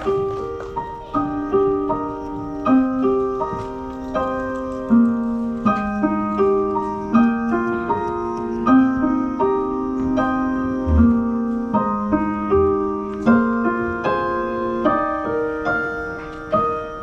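Gentle piano music: a slow melody of single notes played over held lower notes.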